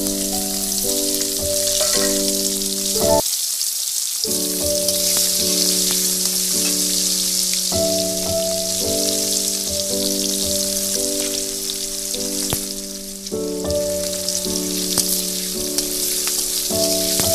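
Potato wedges and chilies sizzling in hot oil in a metal wok, a steady frying hiss. Background music of slow, held notes plays over it and drops out for about a second a few seconds in.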